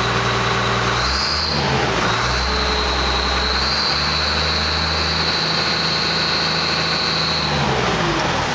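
Case IH 956XL tractor's six-cylinder diesel engine, heard at its exhaust stack, revving up from idle about a second in. It holds at high revs with a thin high whine over the engine note for several seconds, then drops back to idle near the end.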